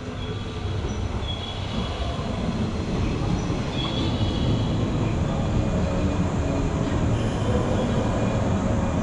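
JR West 103 series electric commuter train pulling into the station platform: the rumble of wheels and motors grows louder over the first few seconds, then holds steady. Two brief high squeals come through, about a second and a half in and again about four seconds in.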